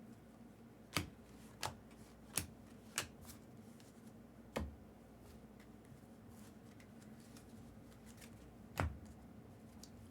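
Trading cards being handled and sorted on a table, with about six sharp clicks and taps at uneven intervals, the loudest near the end.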